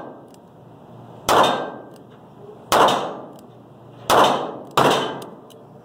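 .38 Special snub-nose revolver fired four times, the shots about a second and a half apart with the last two quicker together. Each shot echoes off the walls of the indoor range.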